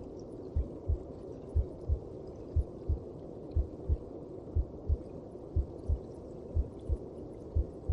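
A mother's heartbeat as heard inside the womb: a slow, low double thump (lub-dub) about once a second over a steady rushing hiss.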